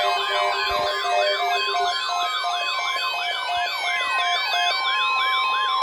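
Several weather alert radio alarms sounding at once: overlapping siren-like wails sweeping up and down a couple of times a second, mixed with on-off beeps and steady alert tones. One steady tone comes in about two seconds in. The wailing stops abruptly at the end.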